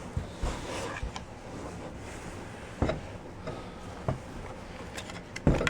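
Faint handling noises: a few light knocks and rustles as a collectible doll and its packaging are moved about in a box.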